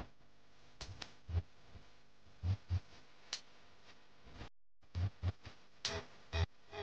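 Light clicks and knocks of metal mounting brackets and a spacer being picked up, turned over and set down on a padded blanket: a dozen or so short taps, some in quick pairs.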